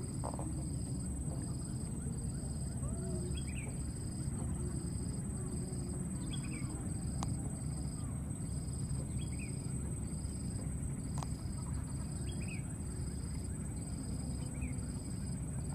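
Outdoor insect chorus: a high buzzing note pulsing about every two-thirds of a second over a constant higher whine, with a short falling high-pitched call about every three seconds, over a steady low rumble.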